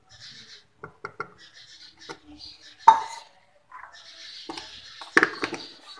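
A cup and a plastic bottle being handled on a countertop: light clicks and taps as the cup meets the bottle's neck while the thick sanitizer is poured in, a sharp knock about halfway through, and a quick cluster of clicks near the end.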